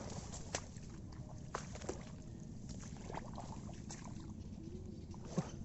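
Footsteps squelching and splashing through waterlogged, muddy rice-paddy ground, with scattered clicks and rustles of brushing past vegetation over a low rumble of wind on the microphone.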